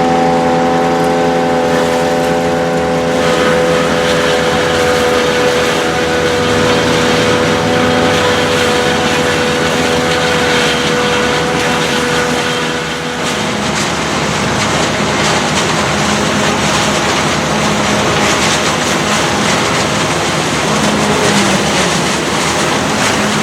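Tractor diesel engine held at steady high revs after revving up, then about halfway through a denser, rougher mechanical noise takes over as the engine's even tone fades.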